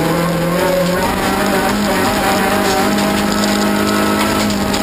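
Toyota Corolla rally car's engine heard from inside the cabin, held at high revs at a near-steady pitch that edges up slightly in the second half, over the rush of tyres and gravel on loose dirt.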